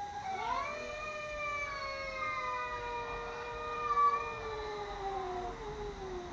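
Two cats caterwauling at each other: two long, drawn-out yowls that overlap and slowly fall in pitch, with a louder swell about four seconds in.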